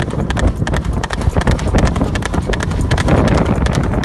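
Horses' hooves clopping on a trail, a quick, continuous run of sharp clops from the ridden horse and the one following.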